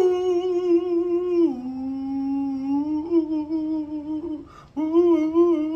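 A man humming a slow melody in long held notes with vibrato. The tune drops to a lower note about a second and a half in and breaks off briefly just past the four-second mark before he holds a note again.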